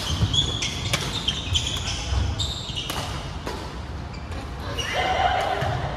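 Badminton rally on a wooden hall floor: sharp racket strikes on the shuttlecock, shoes squeaking, and footfalls thudding, with the echo of a large hall.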